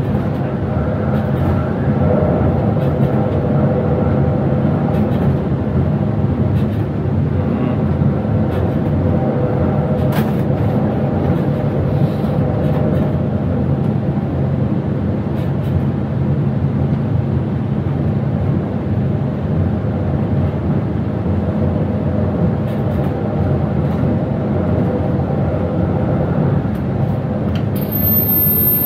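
Electric passenger train running at speed, heard from inside the driver's cab: a steady rumble of wheels on rail with a continuous electrical hum and a few light clicks. A brief, very high-pitched tone sounds near the end.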